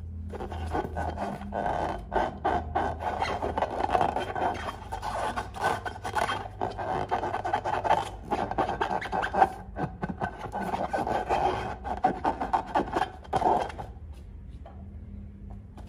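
Hands rubbing and squeezing a filled latex balloon, the rubber scraping in quick, irregular strokes. The rubbing eases off about two seconds before the end.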